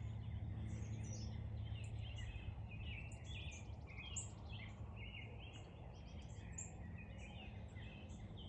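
Birds chirping in many quick, overlapping short notes over a steady low hum.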